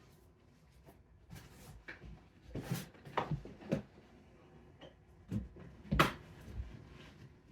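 Hard case being worked open by hand: its latches and lid give a string of separate sharp clicks and knocks, the loudest about six seconds in.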